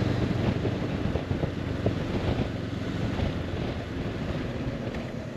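Wind rushing and buffeting against the microphone of a rider on a moving motorcycle.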